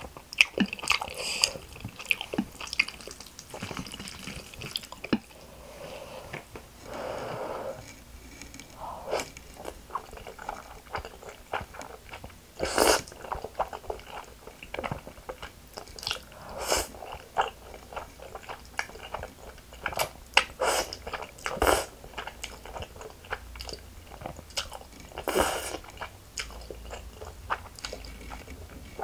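Close-up eating sounds of spicy stir-fried instant noodles with melted cheddar: continuous wet chewing and lip smacking, broken several times by short, loud slurps as strands of noodles are sucked in.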